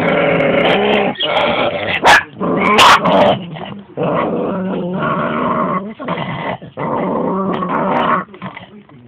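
Dogs squabbling over a bone: long, drawn-out growls that sound like an angry goat, broken by a couple of sharp barks about two and three seconds in.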